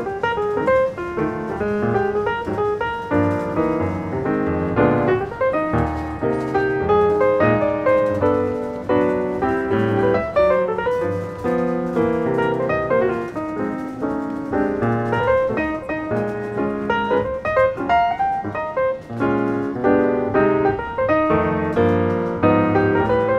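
Piano music: a lively run of notes and chords played throughout.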